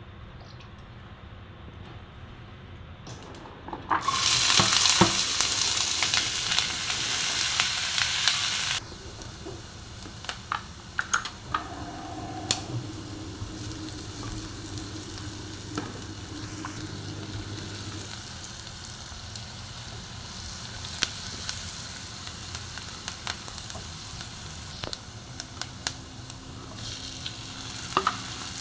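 Diced onion frying in hot oil in a nonstick pan. A loud sizzle begins about four seconds in and drops after about five seconds to a steadier, softer sizzle, with scattered clicks and scrapes as a spatula stirs the onion against the pan.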